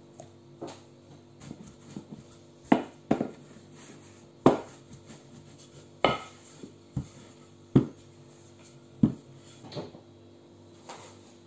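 Wooden rolling pin knocking and clacking on a floured tabletop as dough is rolled out, sharp knocks about once a second, over a steady low hum.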